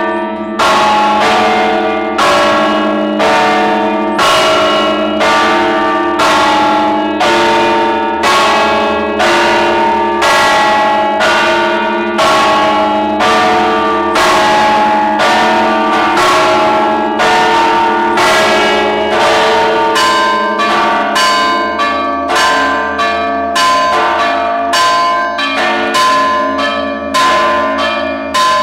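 Church tower bells ringing a loud peal: several bells of different pitch struck in turn, about two strokes a second, the strokes coming faster from about twenty seconds in.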